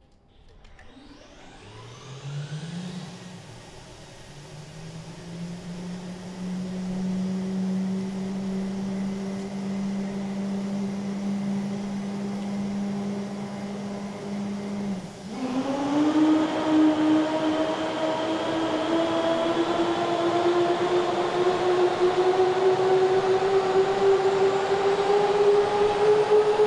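F-15 fighter jet starting up: a turbine whine rises and then holds steady. About fifteen seconds in, a louder whine takes over and keeps climbing slowly as the engine spools up.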